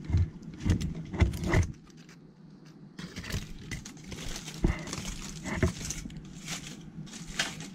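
Aluminium-foil sandwich wrappers crinkling and rustling as food is handled at a table, with scattered light clicks and knocks; the crinkling is thickest from about three to six seconds in.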